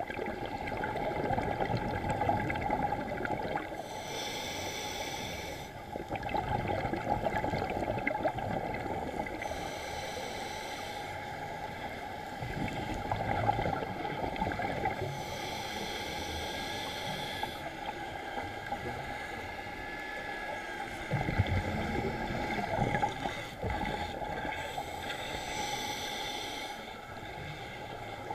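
Scuba diver breathing through a regulator underwater: a hiss of air on each inhale, four times a few seconds apart, with a bubbling rumble of exhaled bubbles between.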